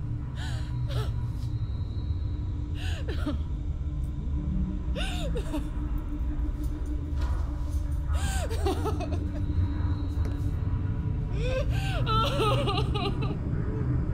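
A deep, steady rumble, the film's unexplained sound said to come from the ocean. Short rising-and-falling cries sound over it every few seconds, thickest about eleven to thirteen seconds in.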